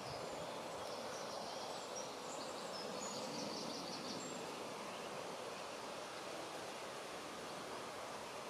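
Steady outdoor background noise, an even rushing haze, with a few faint high chirps between about one and four seconds in.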